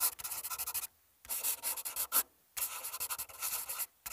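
Rapid scratching strokes on a surface, in three bursts of about a second each with short pauses between, and a fourth burst starting right at the end.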